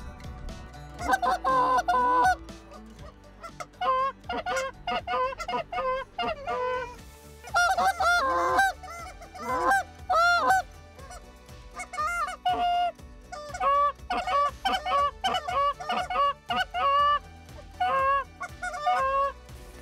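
Canada goose honking: loud, rapid honks and clucks from several voices overlapping, coming in bursts with short pauses, starting about a second in.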